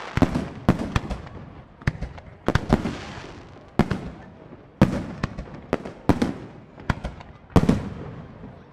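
Professional aerial firework shells, up to 4-inch, launching and bursting in quick succession: more than a dozen sharp bangs at irregular intervals of about half a second to a second, each trailing off in a reverberating tail.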